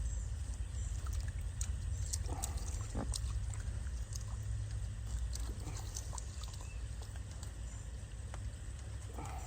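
Pigs grunting a few times, over a steady low rumble and scattered short clicks.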